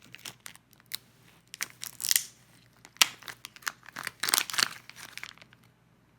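Crinkling and tearing of a thin label being peeled off a rechargeable coin-cell battery, in irregular crackles that stop near the end.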